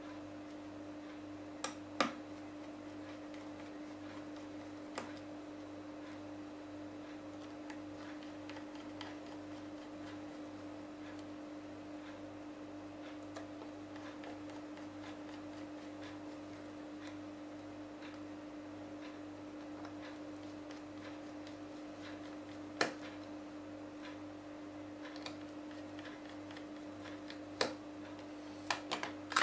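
Precision screwdriver clicking against tiny screws and the metal frame of an opened tablet as its battery screws are driven in: a few sharp isolated clicks, a pair about two seconds in, and a cluster near the end. Under them runs a steady electrical hum.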